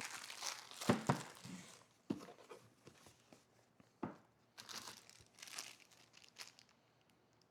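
Parts packaging being handled: crinkling plastic and cardboard rustling in bursts, with a few sharp knocks as parts are taken out of their boxes.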